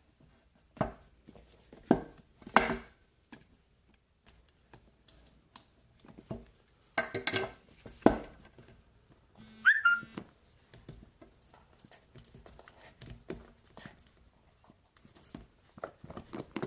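Cardboard phone box and packaging handled by hand while being opened: scattered knocks, taps and rustles, with a brief squeak about ten seconds in.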